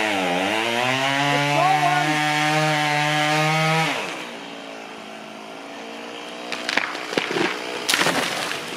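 Chainsaw running at full throttle in the cut, its pitch sagging under load, then dropping to idle about four seconds in. A few seconds later the tree comes down: a quick run of cracks and crashes as the trunk and branches hit the ground.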